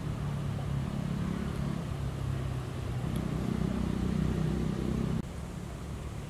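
An engine running, its low tones swelling and falling, cut off abruptly about five seconds in, leaving quieter steady outdoor noise.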